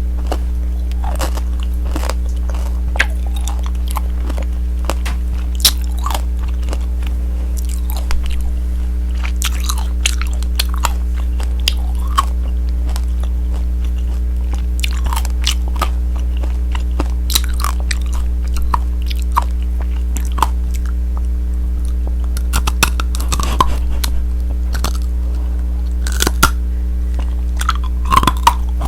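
Tanghulu being bitten and chewed: the hard sugar-candy shell cracking and crunching over the fruit in irregular sharp cracks, with a flurry of cracks near the end. A steady low hum runs underneath.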